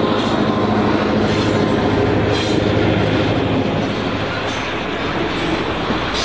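HO scale model freight cars rolling past on the track, a steady rumble of metal wheels on rail with a few faint clicks over the rail joints.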